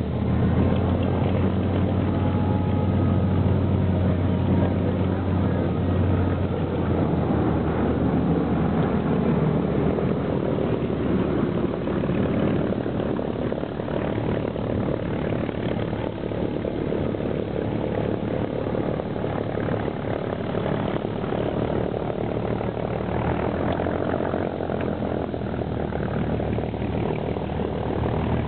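P-47 Thunderbolts' Pratt & Whitney R-2800 radial engines droning steadily overhead, a little louder in the first few seconds and then easing off slightly.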